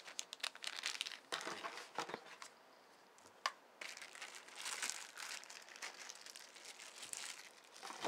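Packaging being handled, crinkling and rustling in irregular bursts, with a short lull and a single click about three and a half seconds in.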